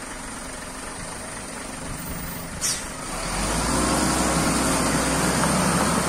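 Concrete mixer truck's diesel engine running, growing louder and deeper about three seconds in. A short click comes just before the rise.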